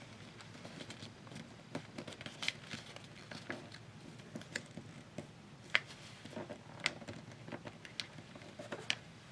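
Sheet of paper being folded and creased by hand: soft rustling broken by scattered sharp crinkles and taps, a few louder ones past the middle.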